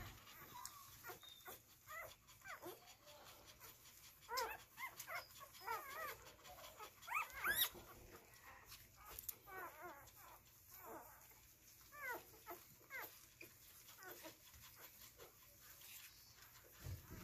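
Two-day-old newborn puppies squeaking and whimpering as they nurse: short, high squeaks coming in scattered clusters.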